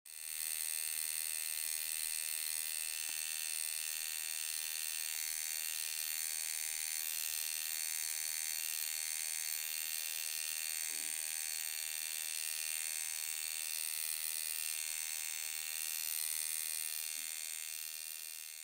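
Tattoo machine buzzing steadily, fading out near the end.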